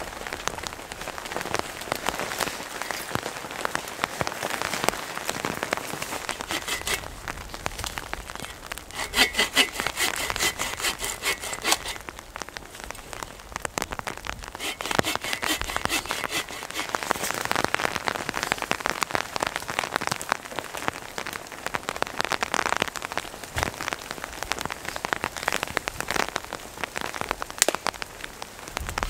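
Steady rain falling, with a hand saw cutting a dead log in two spells of quick back-and-forth strokes, about 9 and 15 seconds in.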